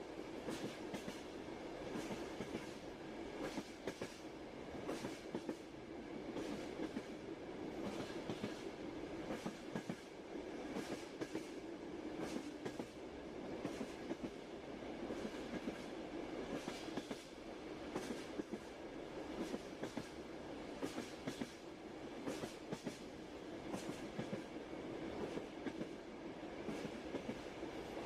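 Moving passenger train: a steady rumble of the rolling carriage with the repeated clickety-clack of the wheels passing over rail joints.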